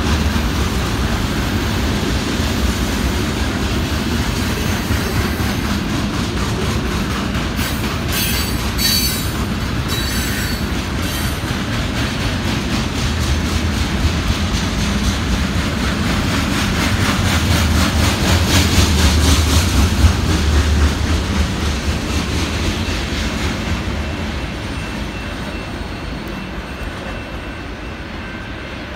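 Union Pacific freight cars rolling past on the rails, a steady rumble with wheels clicking over the rail joints. High wheel squeal cuts in briefly about eight seconds in, and the noise fades near the end as the train moves off.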